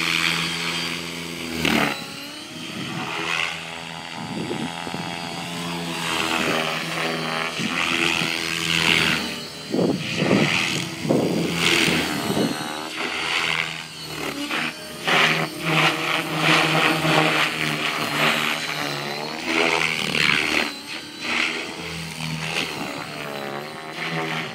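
Align T-Rex 600E Pro electric RC helicopter in flight: motor whine and main rotor blade noise rising and falling in pitch and loudness as it is flown through manoeuvres, with several short louder surges.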